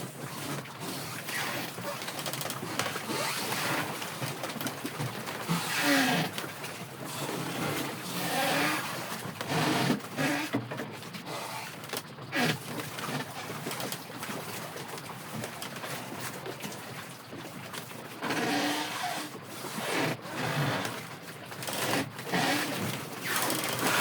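Strong sea wind buffeting the microphone over the wash of big waves, rising and falling in gusts. A few short low-pitched calls come through the noise.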